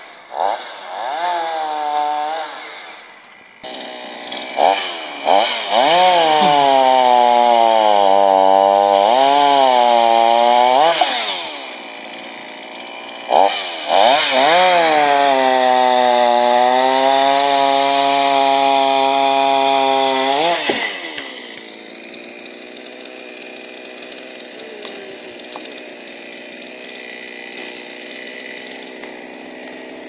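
Two-stroke chainsaw running under load, its engine note rising and dipping through two long cuts, with shorter revs before them, then falling quieter about two-thirds of the way in.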